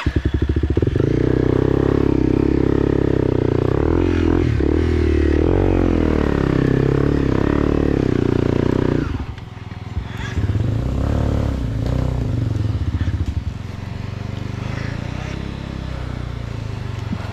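Motorcycle engine cutting in suddenly and revving hard for about nine seconds, its pitch wavering up and down, then dropping to a lower, steadier run.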